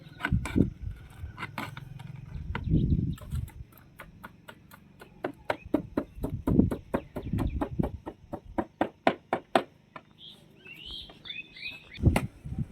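Quick knocks and scrapes, about three to four a second, from a spoon working fertiliser into the soil of potted plants. A few short bird chirps follow near the end.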